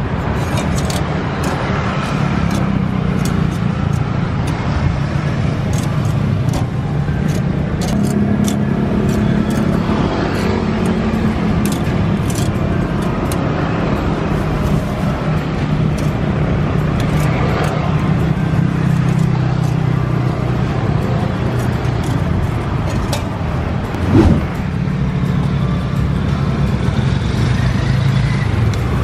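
Steady low engine hum of motor traffic, with scattered light clicks and one louder knock late on.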